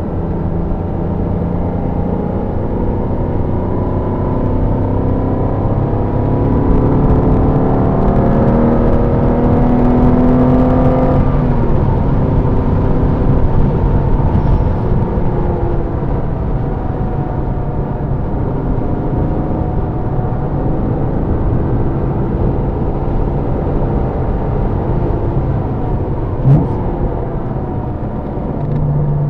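Porsche engine being driven hard around a circuit, its pitch climbing as it revs up, dropping sharply about eleven seconds in at a shift or lift, then rising and falling again, over steady road and wind noise.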